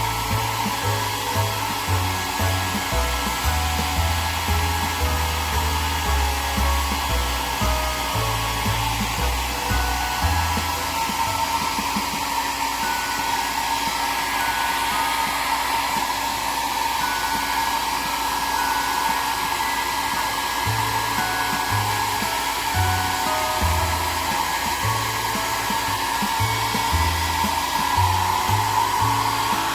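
Hair dryer blowing steadily on a pet's wet coat after its bath: a constant rushing hiss with a whining tone in it.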